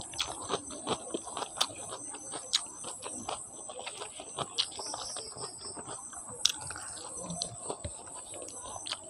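Eating sounds of a mouthful of rice and chicken curry: wet chewing and lip smacks, with fingers squishing rice and curry together on the plate. They come as many irregular short clicks and smacks.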